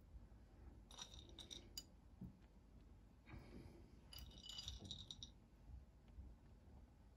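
Faint light clicks and clinks of slivered almonds against a small ceramic plate as they are picked up by hand and scattered onto raw dough, in two short clusters about a second in and around four to five seconds in, with a soft rustle between.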